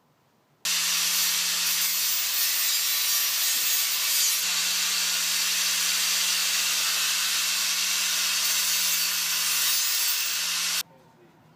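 Handheld DeWalt angle grinder grinding a steel square tube, starting abruptly about half a second in and running steadily with a low hum under the grinding noise, then cutting off shortly before the end.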